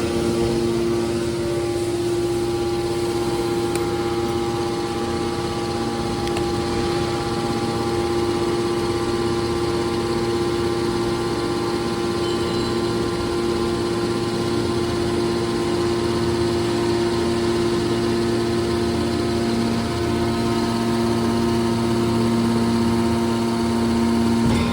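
Hydraulic metal baler's motor and pump running with a steady, unchanging hum.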